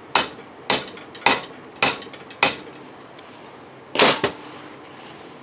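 Hammer blows on a socket used as a driver, tapping a Dorman plug into the rear exhaust-crossover port of a Cadillac 472/500 cylinder head: five sharp, evenly spaced metallic taps about half a second apart, then after a pause one harder blow with a lighter tap just after it, seating the plug.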